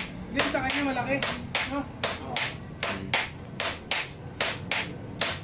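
A blacksmith's hand hammer and a striker's sledgehammer take turns beating a red-hot blade of leaf-spring steel on the anvil. The sharp metal blows come in a steady rhythm of about three a second.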